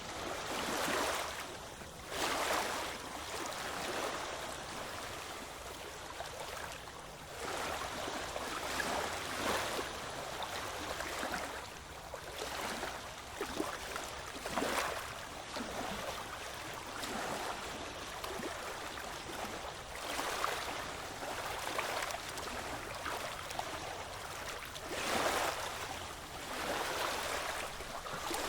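Ocean waves breaking and washing up a shore: a steady hiss of surf that swells with each new wave every few seconds, the strongest surges about halfway through and near the end.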